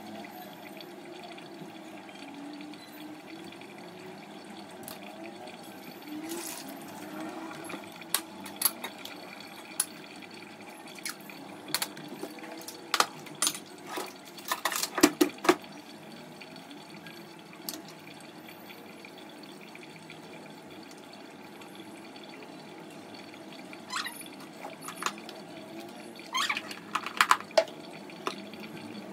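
Water running steadily, with scattered sharp clinks and knocks, mostly in the middle and again near the end.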